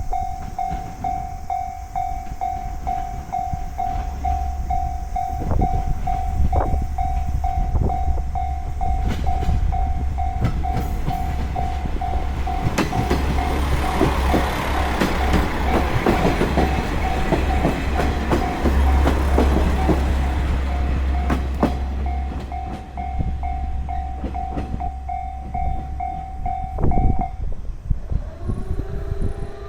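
Japanese railway level-crossing warning bell ringing in an even, repeating clang while a train passes over the crossing. The wheels clatter over the rail joints, loudest in the middle of the pass. The bell stops near the end, once the train has cleared the crossing.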